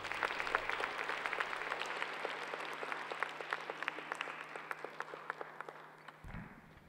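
Audience applauding after the music has stopped, the clapping slowly thinning and dying away over several seconds. A soft low thud sounds near the end.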